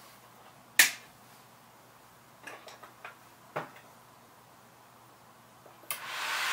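Sharp clicks of hands working the test bench, the loudest about a second in and a few smaller ones around three seconds in. Near the end a click as the power comes on, then the GeForce GTX 770's cooling fan spins up to a loud, steady rush, running really fast even though the card gives no picture.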